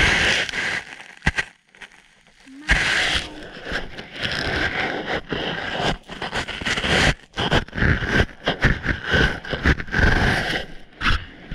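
Snow crunching and scraping right against the camera's microphone in dense, irregular bursts, with a short lull about two seconds in.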